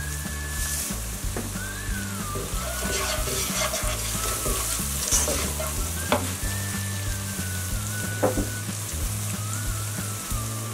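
Onion and tomato-paste masala sizzling in oil in a nonstick saucepan while a wooden spoon stirs and scrapes through it, with a few sharp knocks of the spoon against the pan.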